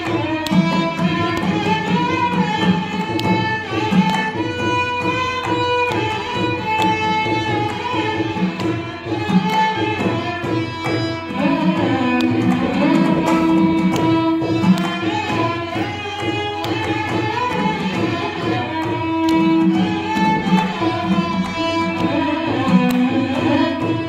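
Two violins playing a Carnatic kriti in Maya Malava Gowlai raga, with ornamented sliding melody lines, accompanied by a mridangam.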